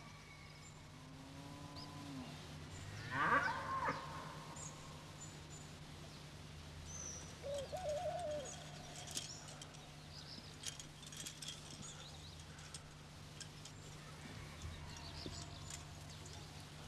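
Countryside ambience: many small birds chirping, with a few louder farm-animal calls, the loudest about three seconds in, over a steady low hum.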